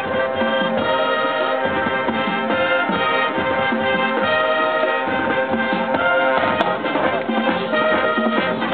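High school marching band playing: brass (trumpets, trombones, sousaphones) sustaining full chords over a drumline beat. The band comes in together suddenly at the start, loud throughout.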